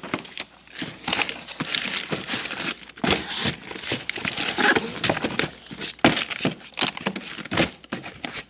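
Plastic food packaging crinkling and rustling in irregular bursts, with sharp knocks, as packs of frozen dough are handled and pushed into a freezer.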